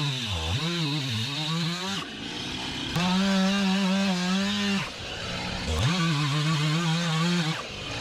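Stihl gas chainsaw at full throttle cutting the notch into the trunk of a large poplar during felling. The engine note bends and dips under load early on. It then holds high and steady through two long stretches of cutting, dropping briefly between them and again near the end as the throttle is let off.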